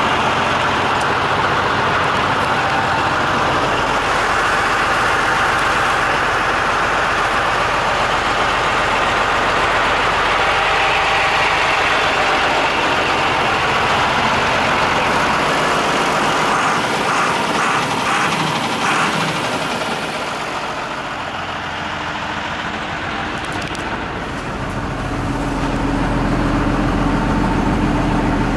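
Renault S170 fire truck's diesel engine idling steadily, a little quieter about twenty seconds in and stronger again a few seconds later.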